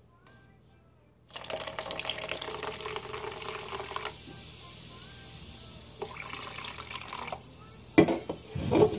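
Lemon-lime soda (Sprite) poured from an aluminium can into a plastic cup: a fizzing, splashing pour of about three seconds, a steady fizz after it, and a second shorter pour about six seconds in. Near the end there is a sharp knock as the can is set down on the wooden table.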